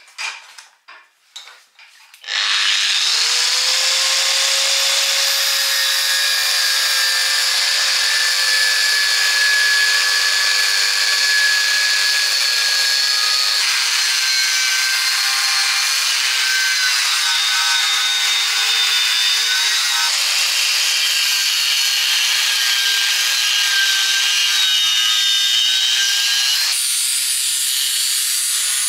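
Angle grinder with a cutting disc cutting through a steel strip clamped in a vise. After a few handling knocks it starts about two seconds in and then runs steadily and loudly, its whine shifting in pitch a couple of times during the cut.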